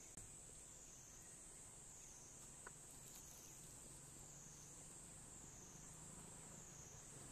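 Faint chorus of insects: a steady high drone that wavers gently up and down in pitch, with a couple of small clicks.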